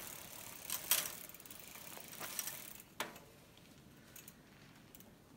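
Bicycle chain and drivetrain turned by hand, the chain running through a degreaser-soaked rag. Faint mechanical ticking, with sharper clicks about a second and three seconds in.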